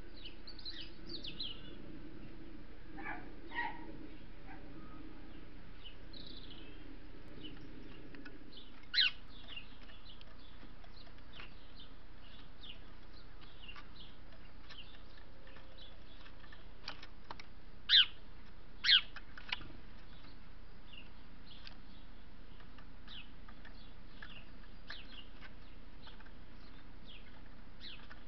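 Small songbird giving brief, high chirps scattered all through, over a steady hiss. Three much louder short, sharp sounds stand out, one about nine seconds in and two close together near eighteen and nineteen seconds.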